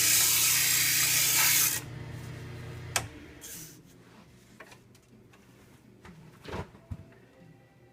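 Sandpaper hissing against a cedar lure blank spinning on a Jet mini lathe, over the lathe motor's steady hum. The sanding stops abruptly about two seconds in, the motor hum dies away with a sharp click about a second later, and a few light knocks and clicks follow.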